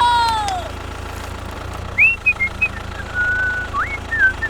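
Whistling: short gliding notes, a rising swoop about two seconds in, then a held note and another upward swoop, over a steady low hum. A voice trails off with a falling pitch in the first moment.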